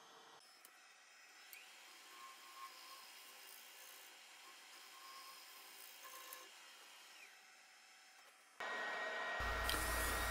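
Very faint scraping of a negative rake scraper on a spinning maple bowl on the lathe, barely above silence. About eight and a half seconds in, a louder steady shop noise with a low hum comes in.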